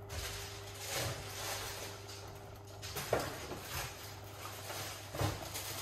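Vegetable stir-fry sizzling and steaming in a stainless steel pan: a steady hiss with a few soft pops and crackles.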